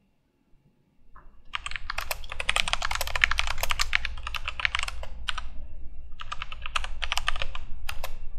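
Fast typing on a computer keyboard: a dense run of key clicks starting about a second and a half in, a short pause, then a second run of typing near the end.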